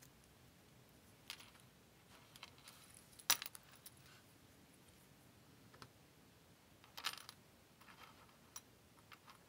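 Small metal clinks and clicks of sterling silver rings and links and steel pliers knocking together and against the bench top as a cold-connected chain is assembled. A few scattered, faint clicks, the sharpest about three seconds in and a short cluster around seven seconds in.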